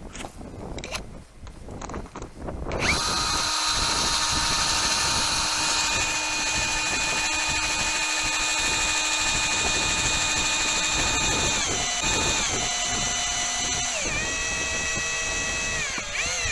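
Cordless drill-driver driving a long steel anchor screw through a tent skirt into lake ice: a steady motor whine that starts about three seconds in, after some crunching and handling, and drops in pitch in several steps over its last few seconds before stopping.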